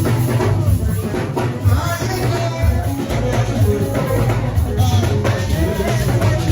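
Choir singing over a band, with a drum kit and a strong bass line.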